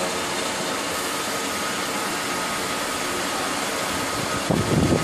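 Home-built recirculating cone protein skimmer and sump plumbing running: a steady rushing hiss of water and air with a faint hum from the skimmer's pump. A brief low rumble comes near the end.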